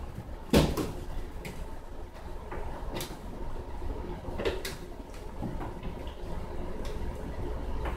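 Scattered clicks, knocks and creaks from a young puppy's feet and claws shifting and scrabbling on a hard tabletop as it rears up and settles. The loudest knock comes about half a second in.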